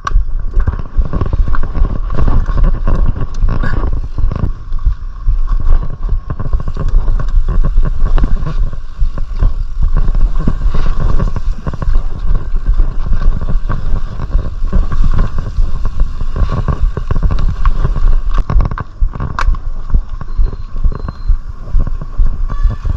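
Mountain bike ridden over a rough, wet trail: a continuous low rumble with frequent small rattles and knocks from the bike and tyres.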